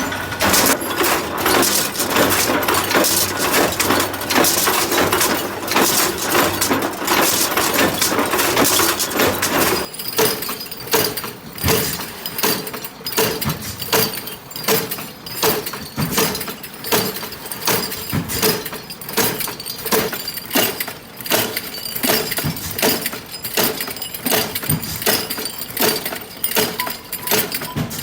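Factory machinery clattering continuously, changing about ten seconds in to a rapid, uneven run of sharp clinks and knocks, like hard parts or glass striking each other.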